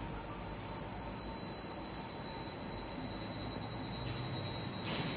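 Double sigma-blade kneader mixer running its blades in reverse on the inching switch: a steady high whine over a low machine hum, slowly growing louder.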